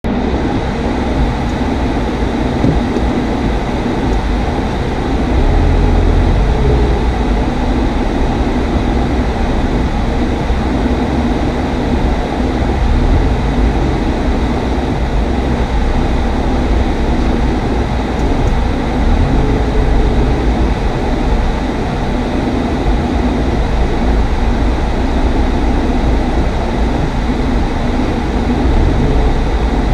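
Subaru WRX S driving on a wet track: a steady, loud rumble of engine and road noise that swells several times as the engine load changes.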